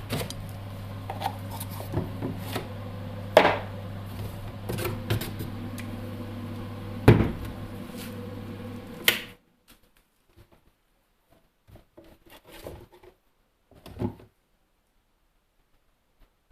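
Steady low hum of a small electric motor, with scattered sharp knocks and clicks of handling. The hum cuts off suddenly about nine seconds in, leaving only a few faint taps.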